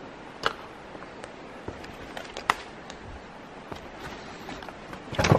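Footsteps on a muddy path littered with sticks, with scattered sharp clicks underfoot and a louder thump near the end.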